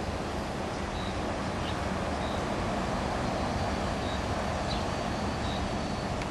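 Steady rumbling outdoor noise, with short high chirps about every second.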